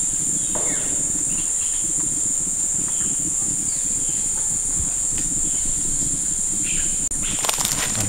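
Steady, high-pitched insect drone with faint bird calls now and then. Near the end come footsteps and rustling on the forest floor.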